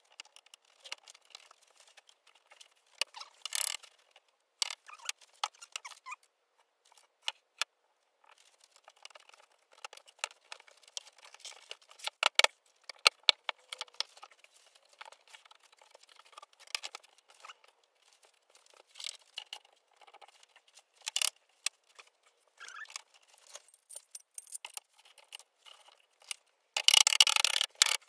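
Sped-up workshop handling sounds as pine window-frame bars are fitted together: scattered light clicks, taps and wooden knocks, with a dense flurry of rapid knocks and rattles near the end.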